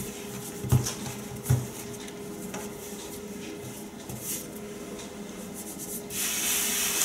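Hands kneading and pressing a ball of cookie dough on a floured wooden worktop, with a few soft thumps in the first couple of seconds. About six seconds in, a hand brushes and rubs flour across the board, giving a short dry hiss. A steady low hum runs underneath.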